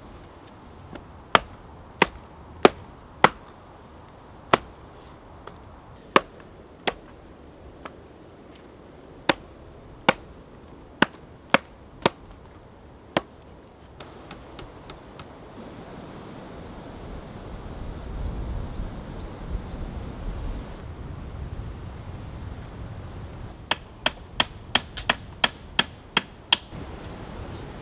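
Hatchet chopping into cedar on a log: about a dozen sharp, irregular chops, splitting bark and wood. Near the end comes a fast run of about ten sharp taps, roughly three a second.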